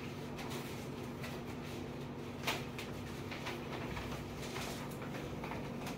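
Paper forms and a cardboard folder being handled: faint rustles and light taps, with one sharper paper rustle about two and a half seconds in, over a steady low room hum.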